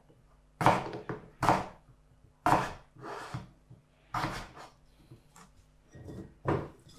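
Kitchen knife cutting raw potatoes into wedges on a wooden cutting board: about seven short, sharp knocks of the blade meeting the wood, roughly one a second and unevenly spaced.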